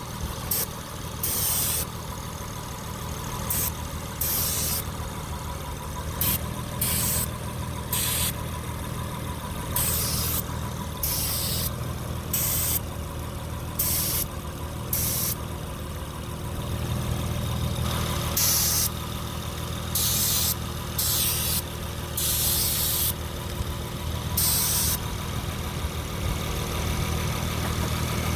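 Engine idling steadily while brake cleaner is sprayed from an aerosol can in many short hissing bursts, irregularly spaced, to find a vacuum leak.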